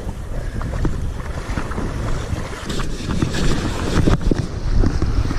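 Wind buffeting the microphone over surf and sloshing water, with scattered short knocks and splashes.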